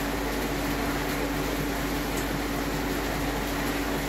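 Steady machinery hum with a constant hiss, holding one even tone throughout.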